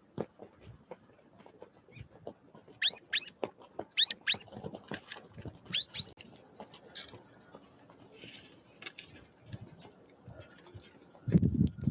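Small wild birds calling: three pairs of short, quickly rising chirps between about three and six seconds in, over scattered light taps and clicks, with a low thump near the end.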